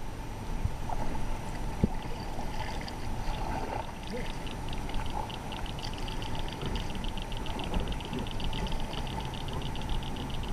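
Water lapping and trickling against a kayak hull close to the microphone. From about halfway in, a fast, even run of high chirps repeats steadily.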